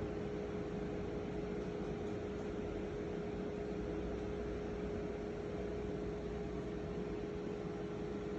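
A steady hum with hiss, holding one constant tone without change; no meowing is heard.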